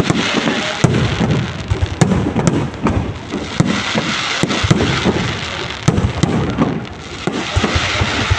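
Fireworks display: a rapid run of shell bursts and sharp cracks over a continuous rumble and crackle, with the loudest bangs about one, two and six seconds in.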